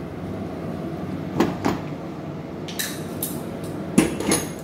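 A few short knocks and clinks of kitchen pots and utensils, about six in all and the loudest about four seconds in, over a steady background noise.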